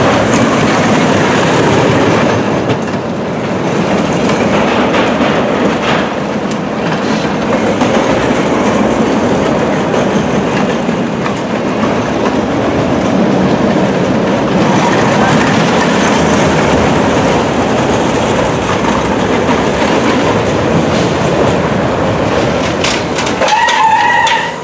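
Steel roller coaster train running on its track: a steady, loud rumble and clatter of wheels on rail. A brief higher tone comes in near the end.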